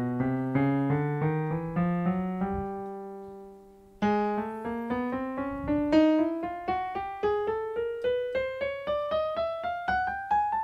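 Yamaha PSR-E473 portable keyboard playing its default piano voice. A run of notes ends on one that rings out and fades a little before halfway, then a steady scale climbs note by note up the keyboard, about three notes a second.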